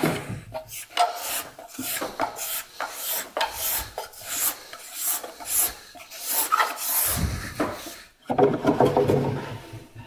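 Steel card scraper worked in short repeated strokes across a wooden board, shaving off fine curls: a scratchy rasping at about two or three strokes a second that stops about eight seconds in.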